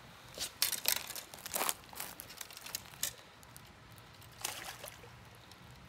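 Short splashes and slaps of water as a peacock bass is held at the surface and released. There is a cluster of splashes from about half a second to two seconds in and one more about four and a half seconds in.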